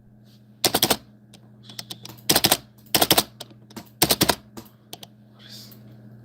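Computer keyboard keys clicking in four quick clusters of three or four strokes, over a faint steady low hum.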